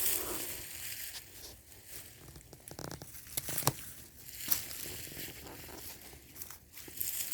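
Rustling and crunching of wood-chip mulch and soil as sweet potatoes are dug out, with a few sharp snaps or cracks a few seconds in.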